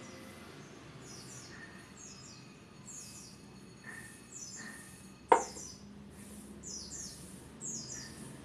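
A small bird chirping repeatedly in short, high, falling notes, with a single sharp knock about five seconds in.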